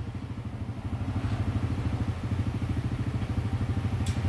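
An engine idling steadily, a fast even low pulsing, with a short high hiss near the end.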